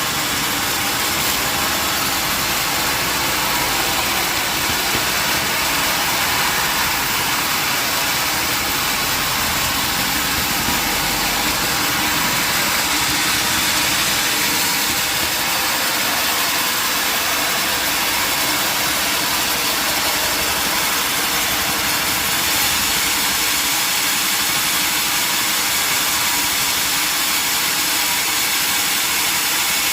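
Sawmill machinery running with a steady, even mechanical noise.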